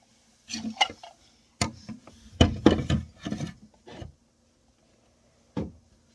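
Toy kitchen cookware and utensils knocking and clattering in short bursts, busiest from about two and a half to three and a half seconds in, with a single knock near the end.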